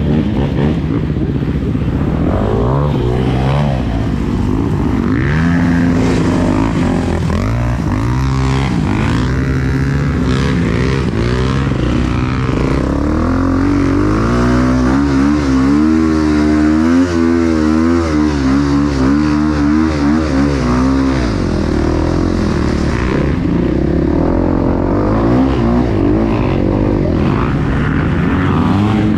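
Enduro motorcycle engine running under changing throttle while riding, its pitch rising and falling. The pitch wavers quickly up and down for several seconds around the middle.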